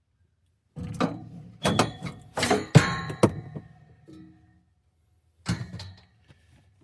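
A run of metal clanks and thunks from metal parts being handled, some strikes ringing briefly. One last knock comes about five and a half seconds in.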